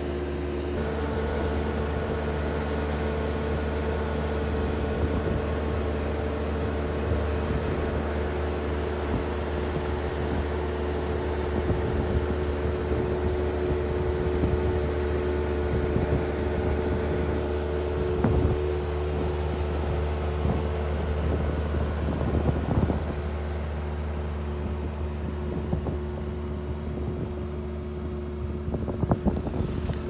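Bobcat skid-steer loader's diesel engine running steadily under load, driving a hydraulic rotary sweeper brush that scrubs grit off a gravel base course. The engine's held tone steps up about a second in and eases near the end, with scattered clicks of stones thrown by the brush.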